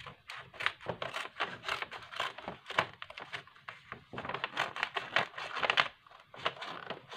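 Scissors cutting open a paper package: a run of irregular snips with paper crinkling, pausing briefly about four seconds in.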